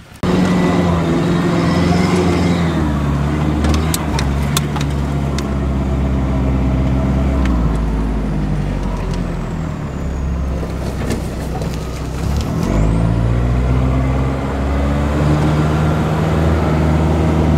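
A 4x4's engine running under way, heard from inside the cab; its note drops a couple of times and rises again about twelve seconds in as the vehicle changes speed, with a few sharp knocks or rattles around four seconds in.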